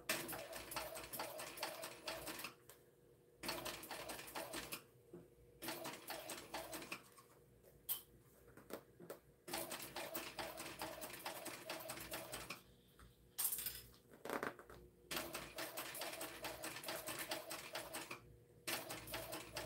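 TechSew 2750 Pro cylinder-arm walking-foot industrial sewing machine topstitching through layers of waterproof canvas: rapid needle clatter in short runs of one to three seconds, stopping and starting about nine times as the bag is turned.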